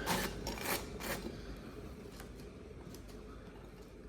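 Knife scraping hard butter across toast: a few quick rasping strokes in the first second or so, then quieter light scraping.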